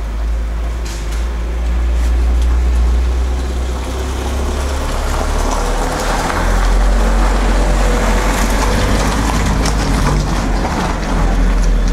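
Automatic transmission fluid pouring from a plastic canister into a funnel, a running, gurgling pour from about halfway through. A steady low rumble sits underneath throughout.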